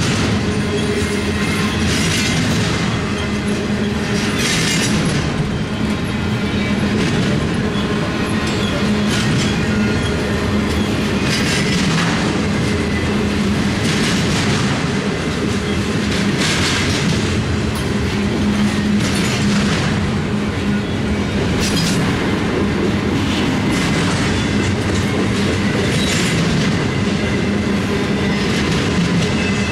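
Double-stack intermodal well cars rolling past at speed: a steady loud rumble of steel wheels on rail, with clickety-clack over the rail joints and a brief brighter hiss or screech every few seconds.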